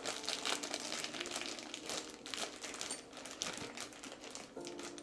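Crinkly packaging rustling and crackling irregularly as hands work at a package from Amazon, struggling to get it open.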